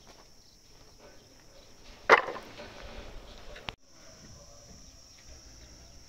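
A single sudden loud knock about two seconds in, with a noisy tail that dies away over about a second and a half, over a steady high-pitched buzz.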